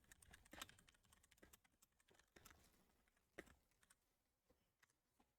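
Near silence with faint, irregular clicks and taps, a little denser in the first half and thinning toward the end.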